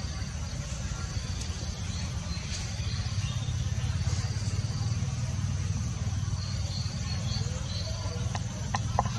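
Outdoor ambience: a steady high drone of insects, with a few faint chirps, over a low rumble of wind on the microphone.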